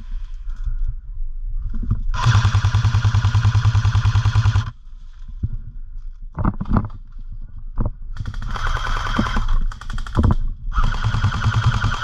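Airsoft rifle firing on full auto in three bursts: a long one of about two and a half seconds, then two shorter ones near the end, each a fast, even rattle of shots. A few single sharp knocks fall between the bursts.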